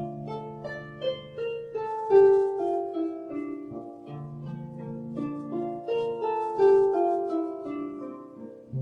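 Solo harp music: plucked notes in flowing arpeggios, each note ringing on over the next, with low notes sustained beneath.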